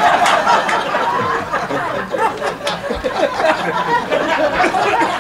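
Live audience laughing heavily after a joke's punchline, with scattered clapping.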